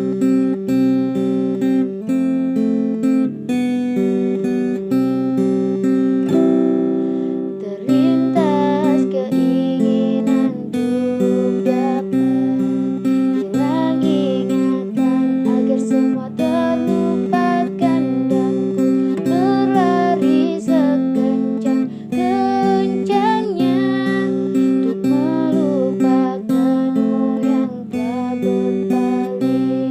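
Acoustic guitar strumming steady chords in an instrumental break of a song. From about eight seconds in, a wavering melody line joins above the chords.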